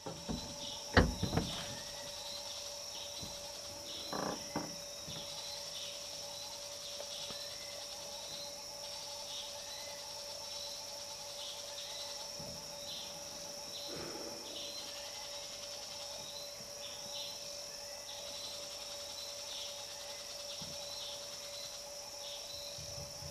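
Forest insect chorus: a steady high drone of crickets or cicadas, with a short chirp repeating about once a second. A few brief louder noises stand out, the loudest about a second in.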